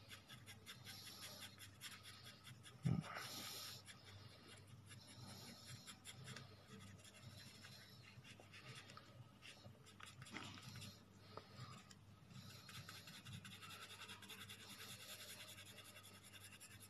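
Faint scratching of a 2B graphite pencil on paper in quick back-and-forth shading strokes. A single short knock comes about three seconds in.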